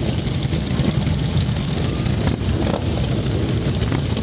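Steady rumble of vehicle engines, with wind buffeting the microphone.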